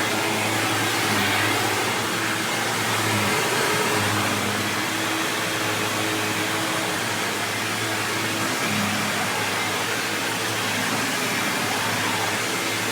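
A 1999 Hoover WindTunnel Self-Propelled Ultra upright vacuum cleaner running steadily: a low motor hum under an even rush of air.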